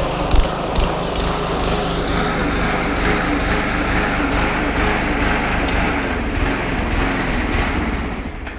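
Small petrol lawnmower engine running steadily, getting quieter near the end.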